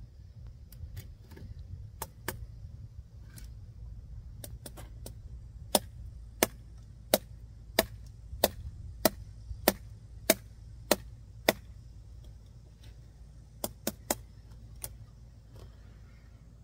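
An out-the-front automatic knife's blade striking a hard material in a series of sharp blows: a few light taps, then about ten hard strikes about two-thirds of a second apart, and a quick burst of three more near the end.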